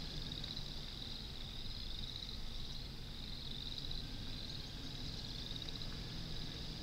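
High-pitched trilling animal calls, a chorus repeating about once a second, over a steady low rumble.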